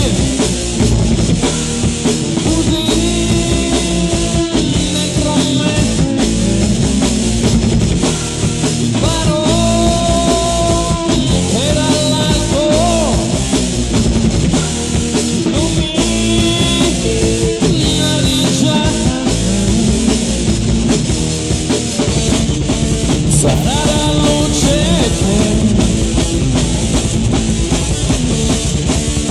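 Heavy metal song: distorted electric guitars and bass over a driving drum kit, with a melody line recurring on top.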